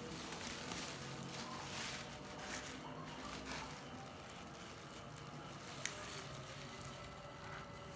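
Faint rustling and handling noises, with a single sharp click about six seconds in.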